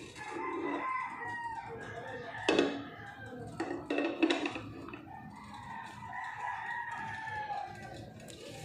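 A rooster crowing twice in long, drawn-out calls, with a few short knocks between the crows.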